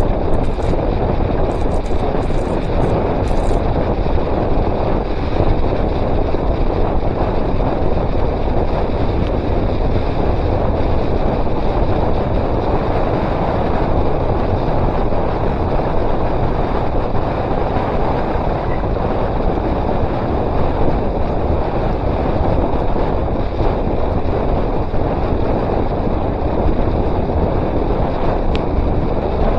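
Wind rushing hard over an action camera's microphone on a bicycle descending at about 30 mph. Mixed in is the roll of wide tyres on wet asphalt, a loud, even rush with no breaks.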